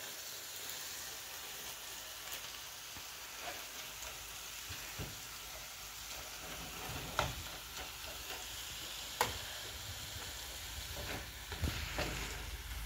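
Ground beef sizzling in a frying pan while a spatula stirs and scrapes it, with a few sharp knocks of the spatula against the pan in the second half.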